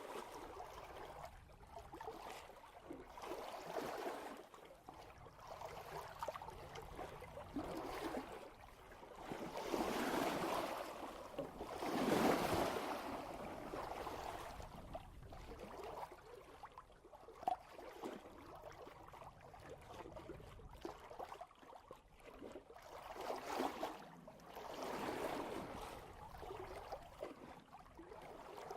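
Sea water rushing and splashing along the bow of a sailboat moving at about 3 knots. It comes in uneven surges, loudest about twelve seconds in and again near the end, with one sharp tick midway.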